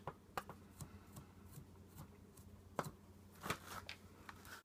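Faint handling noises: scattered light clicks and ticks, a couple of them louder about three seconds and three and a half seconds in.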